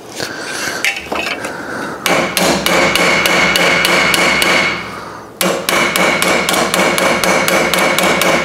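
Ball-peen hammer striking a small steel patch panel laid on a wooden block, about four quick, even blows a second with a metallic ring. The blows come in two runs with a short break about five seconds in. This is planishing the formed sheet metal flat by hitting its high spots, ready for welding.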